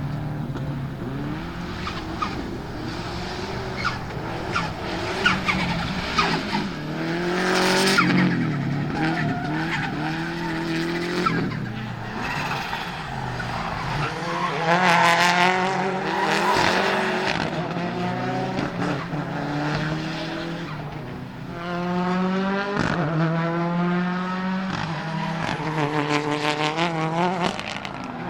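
Subaru Impreza GC8 Group A's turbocharged EJ20 flat-four racing hard, its pitch climbing and dropping over and over as the car accelerates, shifts and lifts, with several long rising pulls.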